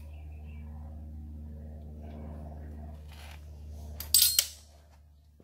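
A metal hand tool clatters onto metal about four seconds in: a short, bright, ringing clink, the loudest thing here, over a steady low hum.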